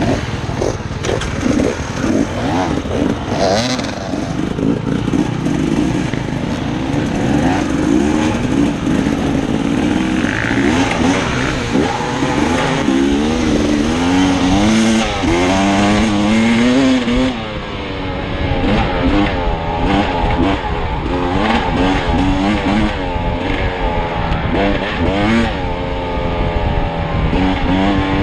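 Dirt bike engine heard from the rider's helmet camera, revving up and down again and again as the bike accelerates and changes gear, over a steady rush of wind and trail noise.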